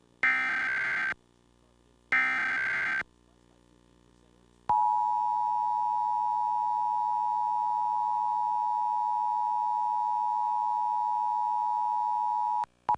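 Emergency Alert System tones: the last two of the three SAME data header bursts, each about a second long and a second apart. After a short gap comes the two-tone EAS attention signal (853 and 960 Hz), a steady dual tone held for about eight seconds before it cuts off. Together these announce a nationwide test of the Emergency Alert System.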